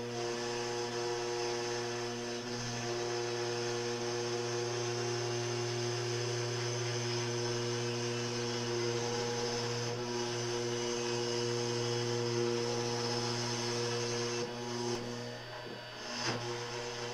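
CNC router spindle running steadily as the bit mills a block of Corian.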